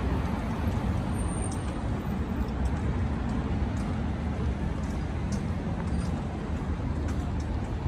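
Steady road traffic on a multi-lane city road: cars driving past, tyre and engine noise blending into a continuous rumble.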